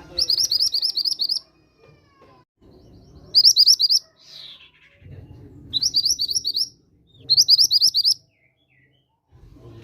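Mantenan gunung bird singing: four bursts of rapid, evenly repeated high chirping notes, each burst about a second long, over a low background rumble.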